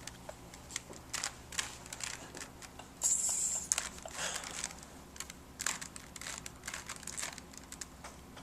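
Rubik's Cube being turned quickly by hand: irregular plastic clicks and clacks as the layers twist, with a brief louder rustle about three seconds in.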